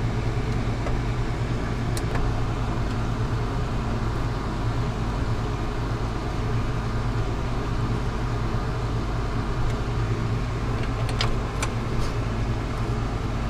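A steady low machine hum runs throughout, with a few small clicks about two seconds in and again near the end, as wires are handled at a bus bar terminal.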